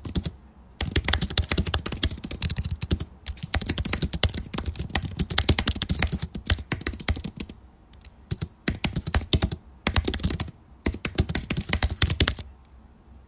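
Fast typing on a computer keyboard: dense runs of keystrokes broken by a few short pauses, with a longer lull near the end.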